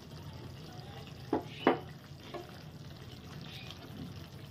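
Kitchenware clinking: two sharp knocks about a second and a half in, the second louder, and a smaller one shortly after, over a steady low hum.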